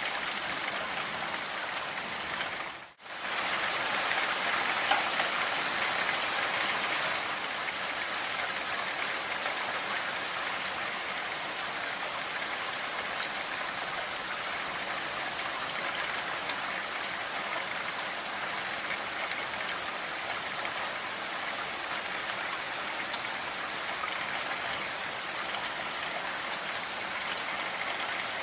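Steady rain falling, a dense even hiss of drops. About three seconds in it cuts out almost to silence for a split second, then comes back slightly louder for a few seconds before settling.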